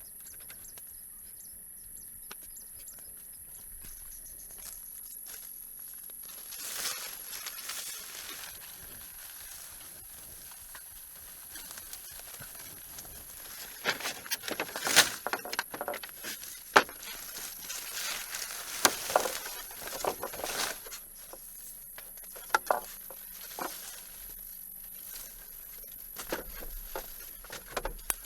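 Quiet outdoor ambience with a steady high-pitched whine throughout. A run of sharp clicks and taps comes about halfway through, with a few more near the end.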